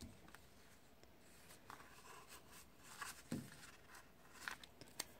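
Faint rustling of paper sticker sheets being handled, with a few light taps and clicks.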